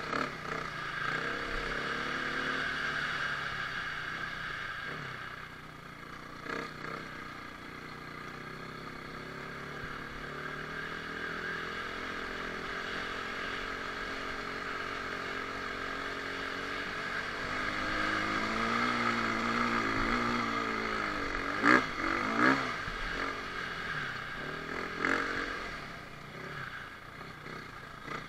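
Dirt bike engine running and revving, its pitch rising and falling with the throttle, with a few sharp knocks about two-thirds of the way through.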